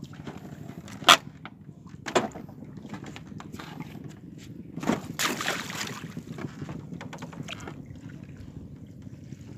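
Water sloshing and splashing as a hand scoop net is worked through a shallow net pen of tilapia fry, with two short sharp sounds about a second apart near the start and a longer splash about five seconds in, over a steady low rumble.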